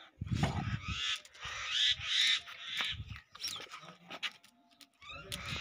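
A dog vocalizing in short bursts while it plays. The sounds thin out in the middle and pick up again near the end.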